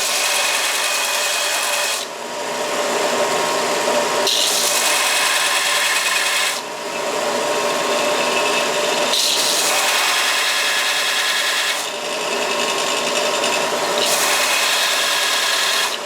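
Belt sander running steadily while a hot-rolled steel part is pressed against the moving belt in repeated passes, giving a grinding hiss that swells and eases every two or three seconds as the part is pushed on and eased off. The steel's sawn faces are being ground flat and clean.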